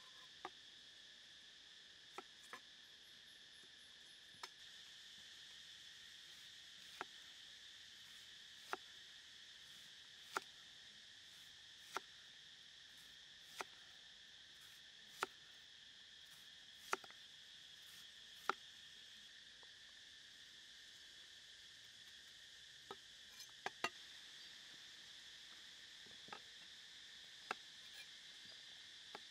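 Kitchen knife slicing through an onion and tapping down onto a wooden chopping block, one sharp tap about every second and a half, over a steady high drone of insects. Near the end a few more irregular knife taps as a carrot is cut.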